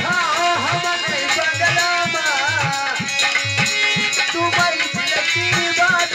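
Folk ensemble music: a hand drum beats a steady rhythm, about two to three strokes a second, under a wavering melody line.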